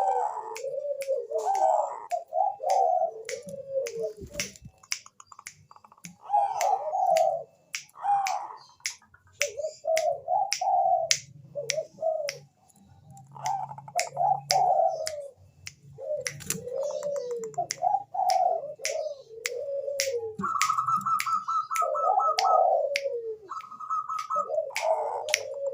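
Zebra dove (Bangkok-bred perkutut) cooing in repeated phrases, each with a falling pitch, over a steady run of sharp clicks. A quick high trill comes twice near the end.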